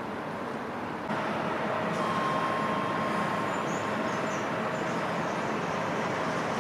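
Docklands Light Railway train running into a station platform, starting about a second in: a steady rumble of wheels on rail with a faint steady whine above it.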